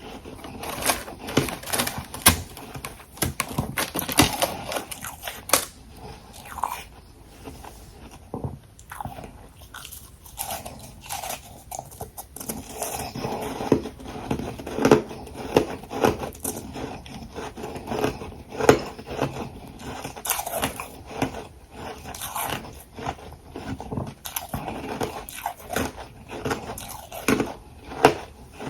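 A person biting and chewing hard ice close to the microphone: irregular, dense crunches and crackles, thinning to softer chewing for a few seconds about a third of the way in.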